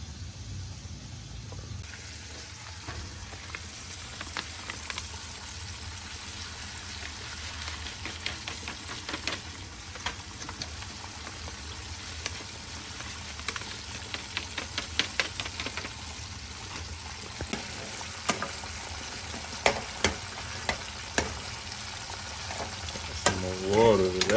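A spoon clicks and scrapes against a saucepan as instant mashed potatoes are stirred, over a steady sizzling hiss from the stove. The knocks grow more frequent midway and are loudest in the last few seconds.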